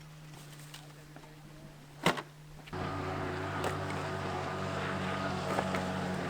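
A motor runs with a low steady hum; there is a sharp click about two seconds in, and just under three seconds in it steps up to a louder, deeper hum that then holds steady.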